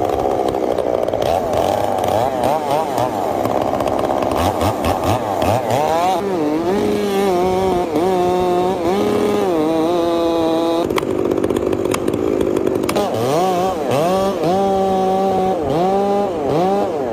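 Chainsaw engine revving up and down again and again, held at high revs for a second or so at a time between drops in pitch.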